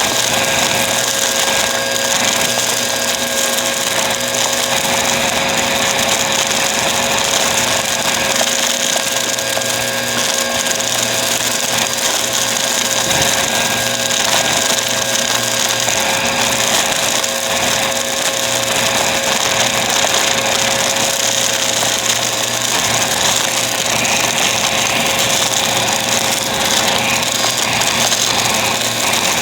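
Bissell vacuum cleaner running steadily: a loud rush of air with a steady motor whine held throughout.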